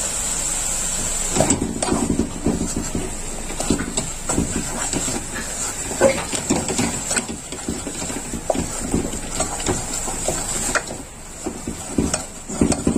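A wooden spatula stirs flour into sizzling melted butter in a metal saucepan while a roux is being made. A steady sizzle gives way about a second and a half in to irregular scrapes and knocks of the spatula against the pot.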